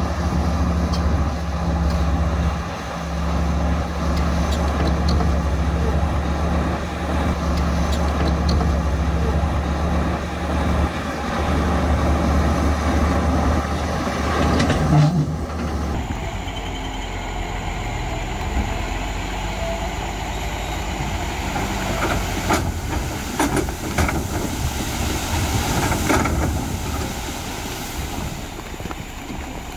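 Heavy diesel earthmoving machinery running with a steady low engine drone. About halfway through the sound changes abruptly to another working machine, with several loud clanks and knocks a little later.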